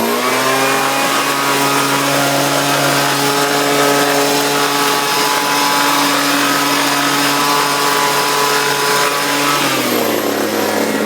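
Petrol leaf blower running at full throttle, a loud steady engine note. It revs up at the start, holds for about ten seconds, then drops and winds down near the end as it is throttled off.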